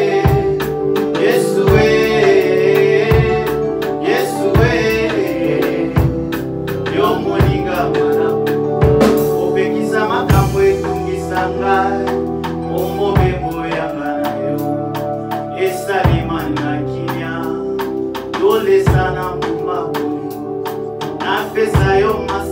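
Live Lingala-language gospel worship song, sung into microphones by a man with a woman, over sustained held chords and a drum kit keeping a steady beat.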